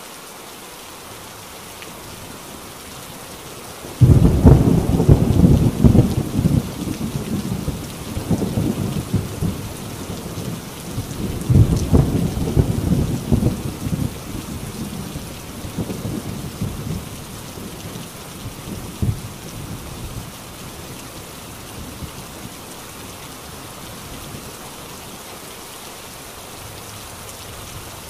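Steady rain on a corrugated tin roof. About four seconds in, a thunderclap breaks in suddenly and rolls on as a low rumble. It swells again midway, then dies back to the rain.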